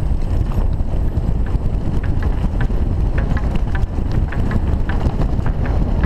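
Wind buffeting a helmet-mounted camera microphone with a heavy low rumble, as a downhill mountain bike rolls fast over a gravel trail, with scattered small clicks and rattles from the tyres on loose stones and the bike.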